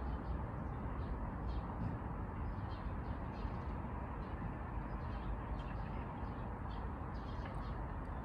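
Outdoor ambience: a steady low rumble with many short, faint high bird chirps scattered throughout.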